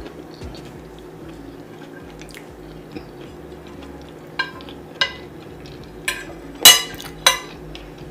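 Cutlery clinking against a plate during a meal: a handful of sharp clinks in the second half, the loudest about two-thirds of the way through, over a low steady hum.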